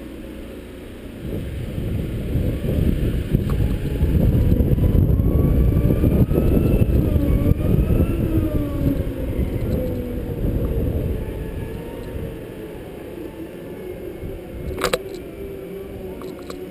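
Wind buffeting the microphone of a camera riding on a moving Segway, a heavy low rumble that builds about a second and a half in and eases off after ten seconds. A faint whine rises and falls in pitch in the middle, and a sharp click comes near the end.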